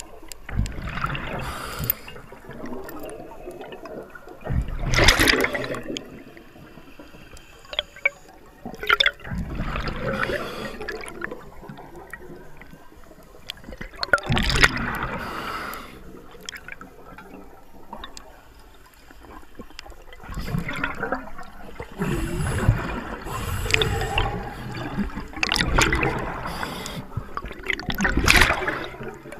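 Underwater sound of a diver's exhaled bubbles, a gurgling rush that comes in bursts every few seconds, with quieter water hiss between.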